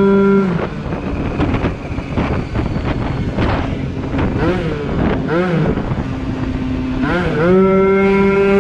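Yamaha Aerox scooter's Polini 70cc two-stroke engine holding a steady high-pitched note under throttle, which drops off about half a second in. It then crackles and burbles with the throttle closed, with two brief blips, and climbs back to the same steady high note near the end.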